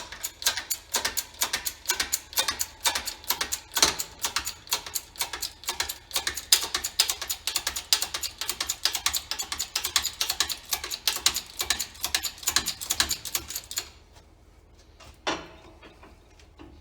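Rapid ratchet clicking, about five clicks a second, as a ratchet is worked in short strokes to press the shaft and bearing out of a tractor water pump; it stops about 14 seconds in, followed by a couple of single knocks near the end.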